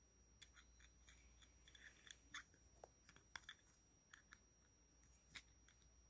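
Faint plastic clicks and small scrapes from an MC4 inline solar fuse holder being twisted and pushed together by hand, a few sharper clicks among them, over near-silent room tone.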